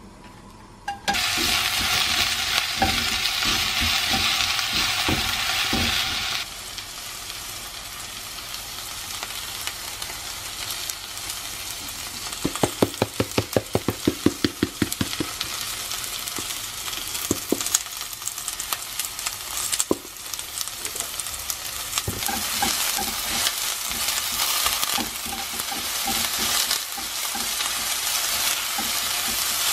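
Sliced onions frying in olive oil in a nonstick pan: a loud sizzle starts suddenly about a second in as they hit the hot oil, then settles to a softer, steady frying hiss. A quick run of knocks comes in the middle, and the sizzle grows louder again near the end as a spatula stirs the onions.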